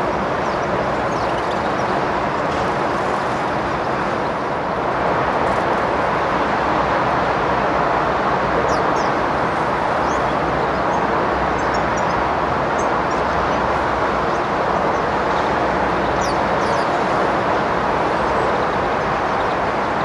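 A steady, even rushing background noise, with a few faint, short, high chirps from small birds from about halfway through.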